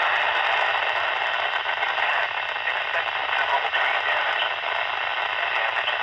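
Uniden BC125AT handheld scanner's speaker giving out a steady hiss of radio static while tuned to a NOAA weather-radio frequency.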